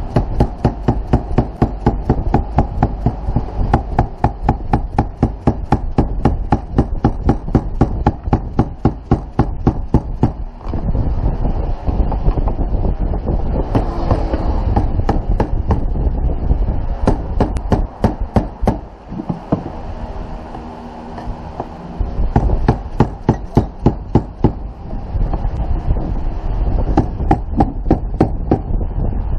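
Rapid, regular mechanical clicking, about four or five clicks a second, in long runs with two short breaks, over steady wind noise on the microphone.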